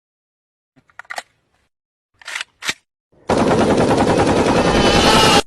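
A loud, rapid rattle lasting about two seconds, starting about three seconds in and cutting off sharply, like a burst of machine-gun fire. A few faint short clicks come before it.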